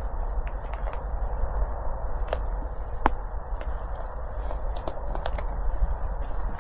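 Slow, careful footsteps on the forest floor, with irregular sharp cracks and clicks from twigs and debris underfoot, over a steady rush of background noise.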